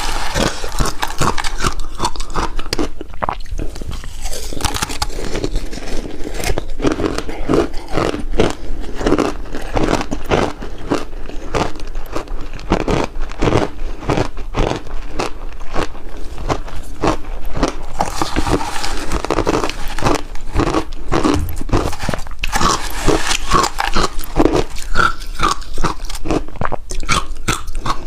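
Refrozen shaved ice being bitten and chewed close to the microphone: a continuous run of crisp, rapid crunches.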